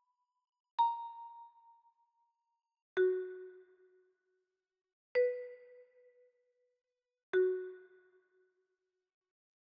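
Chime sound effect: four single bell-like notes struck about two seconds apart, each ringing and dying away. The first is high and the other three are lower.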